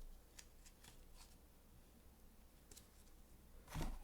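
Faint handling of paper booklets and packaging: a few soft ticks and rustles. Near the end comes one louder, short knock.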